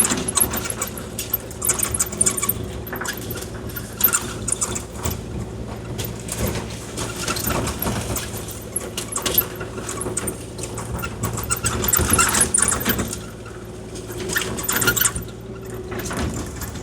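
Kubota KX040-4 mini excavator's diesel engine running at a steady working speed, while its bucket scrapes and spreads gravel, giving scattered crunching and rattling throughout.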